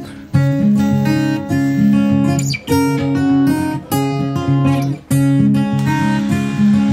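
Instrumental background music, with chords changing every half second or so.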